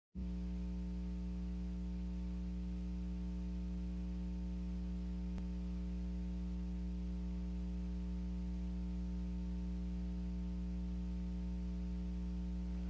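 Steady electrical mains hum with a buzz of evenly spaced overtones over faint hiss, and a single tick about five seconds in.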